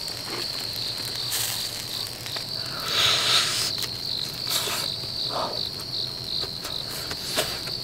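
Crickets chirping in a steady, pulsing high trill, with a few short crunching noises as grilled gizzard shad is bitten and chewed, bones and all.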